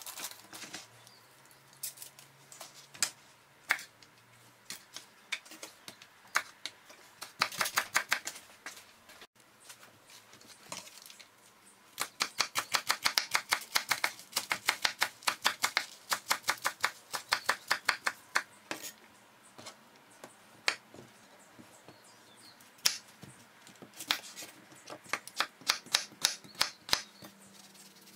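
Chef's knife finely chopping leafy greens and cucumber on a plastic cutting board: sharp blade taps against the board, sometimes single, sometimes in quick even runs, the longest lasting about seven seconds near the middle.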